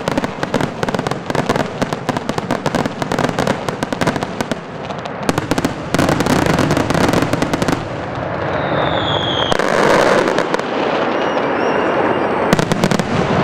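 Fireworks display: a dense, loud run of crackling bangs and pops. It grows heavier about six seconds in and again near the end, and a short falling whistle cuts through a little past the middle.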